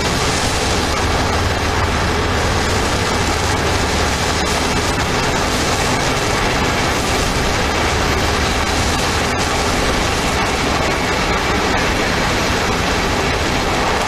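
TIG (tungsten inert gas) welding arc running steadily, a continuous loud hiss with a low hum, as the arc melts two plate edges together without filler.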